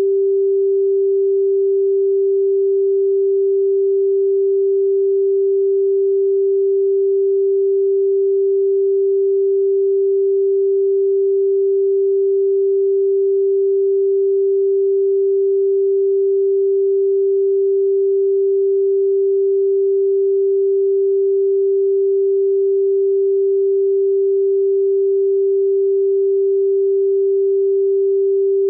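A steady, unbroken pure sine-wave tone at 392 Hz, the pitch G above middle C.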